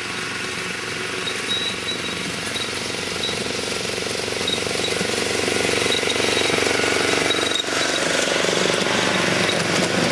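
Miniature-railway diesel-outline locomotive running steadily as it hauls a train of passenger cars, growing louder as it comes closer and is loudest in the last few seconds as it passes.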